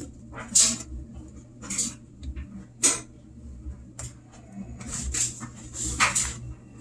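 Fingers probing inside a washing machine's wet drain-filter housing, feeling for debris that is blocking the drain: about six short, irregular sloshing and scraping noises, over a low steady hum.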